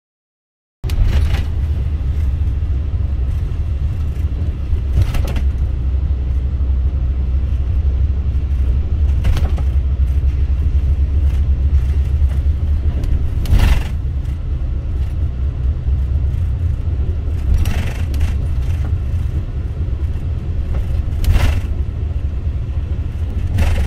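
Car driving, heard from inside the cabin: a steady low road and engine rumble that starts abruptly about a second in, with a short sharp knock about every four seconds.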